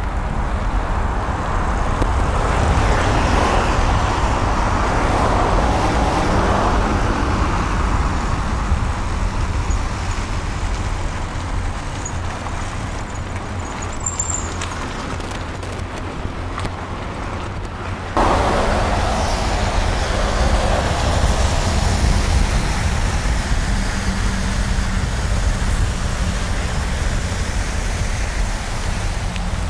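Steady rush of wind and road noise on a bicycle-mounted action camera riding through city traffic, with cars and a bus nearby. The sound jumps abruptly louder about eighteen seconds in.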